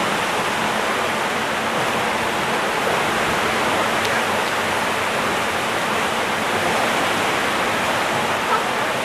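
Steady rushing hiss of choppy sea water around a boat, with no separate wave crashes.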